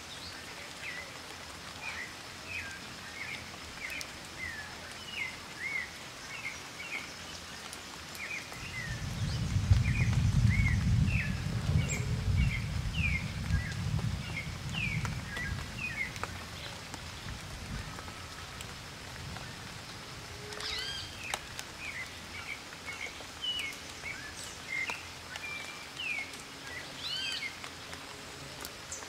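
Birds chirping all around: many short, quick high chirps over a steady outdoor hiss. A low rumble swells about nine seconds in, becomes the loudest sound, and fades away by about eighteen seconds.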